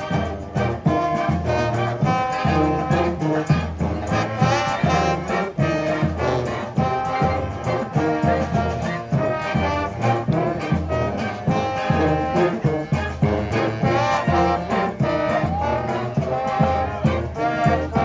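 Street brass and drum band playing live: horns carrying the tune over a steady low beat.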